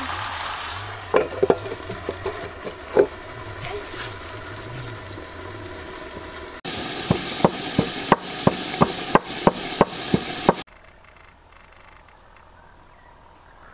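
Chicken and mushrooms sizzling in a wok over a wood fire, with a scatter of sharp knocks. After an abrupt change the hiss carries a run of sharp clicks about twice a second. About eleven seconds in it drops to a faint, steady background.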